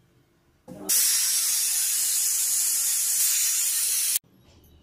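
United aluminium pressure cooker whistling: steam hisses hard through the weight valve for about three seconds, the sign that the cooker has come up to pressure, then cuts off suddenly.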